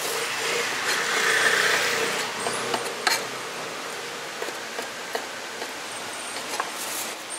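A cleaver knocking against a wooden cutting board as cooked pork offal is sliced, a few separate sharp taps at uneven intervals over a steady background of street and traffic noise that swells about a second in.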